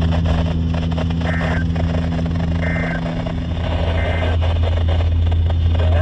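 A Midland weather radio's speaker plays three short, harsh two-tone buzzes about a second and a half apart. These are the EAS end-of-message code closing a NOAA Weather Radio Severe Thunderstorm Watch alert. A steady low hum runs beneath them.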